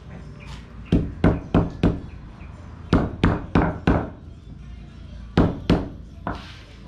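A hammer beating charcoal-grilled buffalo or cow hide on a wooden block, in three quick runs of blows: about four, about four again, then two. The pounding cracks the grilled hide so it is easy to bite and knocks off the charred black layer.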